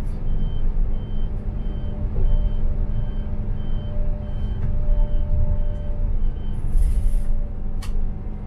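Heavy vehicle's engine rumbling steadily, with a high warning beep repeating about three times every two seconds that stops after about six seconds. A short hiss of released air follows, then a single click.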